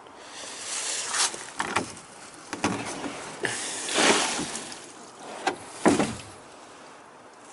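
Upturned hard plastic kiddie pool being lifted at its rim and handled: a series of irregular plastic scrapes and knocks, the sharpest about six seconds in.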